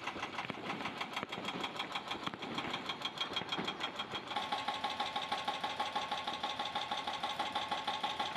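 An engine running steadily with a rapid, even pulsing of about ten beats a second. About four seconds in, a steady whine joins it.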